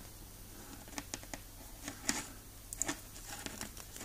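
Side cutters stripping the plastic insulation off the end of a thin wire: faint, irregular small clicks and short scrapes as the jaws nick and pull at it.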